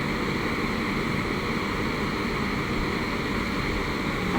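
Backhoe engine running steadily while the machine works at loading a truck.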